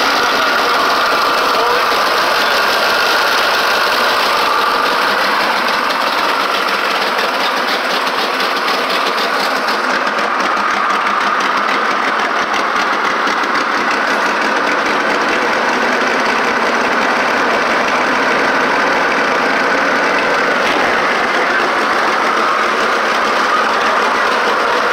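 Carbureted V8 engine running steadily, its carburetor open with no air cleaner fitted.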